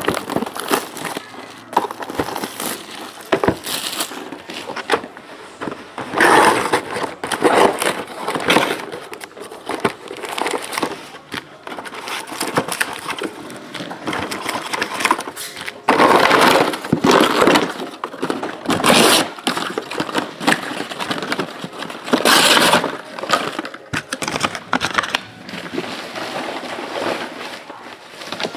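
Crinkling and tearing of plastic wrap and cardboard as a sealed box of trading cards is opened and its packs are taken out and handled: irregular rustles and crackles with several louder bursts.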